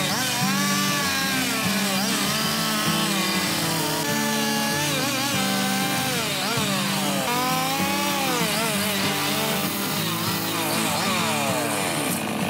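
Husqvarna chainsaw cutting into a log, its engine pitch sweeping up and down again and again as the throttle and cutting load change. Background music plays underneath.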